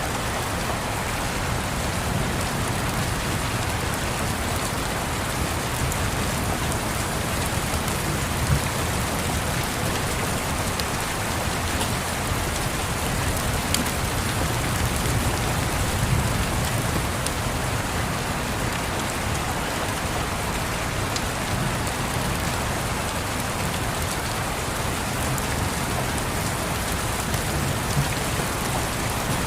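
Steady rain falling, with a few sharp crackles from a log fire.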